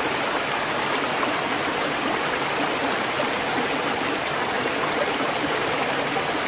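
Stream water rushing and splashing over rocks: a steady, even rush of water.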